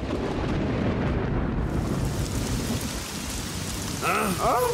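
Thunderstorm sound effect: a low rumble of thunder, with the hiss of heavy rain filling in from about two seconds in.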